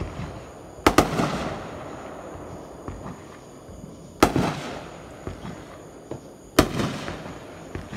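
Consumer aerial fireworks bursting overhead: three loud bangs, a double crack about a second in, another at about four seconds and one more near six and a half seconds, each trailing off in echo.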